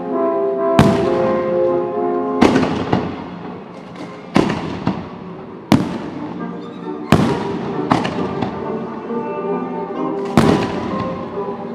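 Aerial fireworks exploding in sharp, loud bangs, about seven of them spaced one to three seconds apart, each trailing off in an echo, with music playing underneath as part of the synchronized display.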